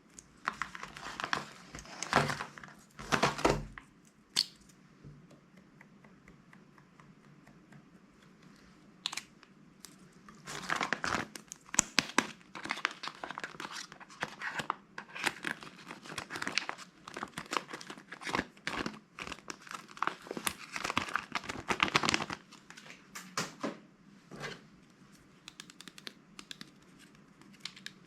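Plastic bags crinkling and tearing open, in two bouts: a short one in the first few seconds and a longer, denser run of crackling from about ten to twenty-two seconds in.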